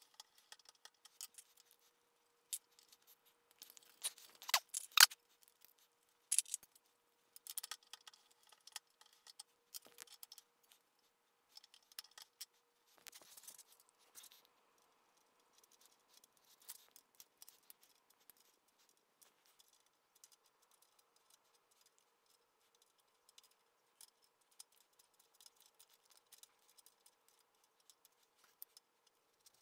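Small metallic clicks, taps and scrapes of hand tools, a hex key and a combination wrench, working bolts on a Bridgeport mill head. They come in scattered bunches, loudest about four to five seconds in, over a faint steady hum.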